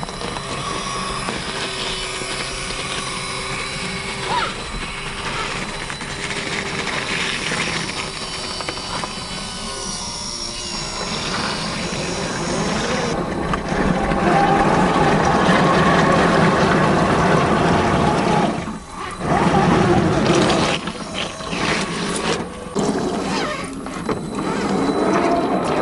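Tamiya CC-01 RC crawler's 55-turn brushed electric motor and gearbox whining as the truck pushes through mud and shallow water, with water sloshing. Louder from about halfway through, with a brief drop about three quarters through.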